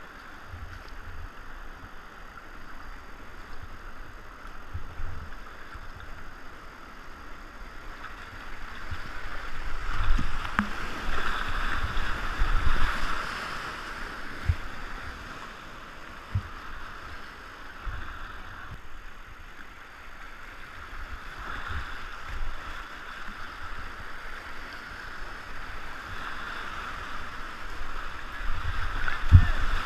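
Whitewater rapids rushing around a kayak as it runs them, with scattered dull low thumps. The rush swells louder about a third of the way through and again near the end.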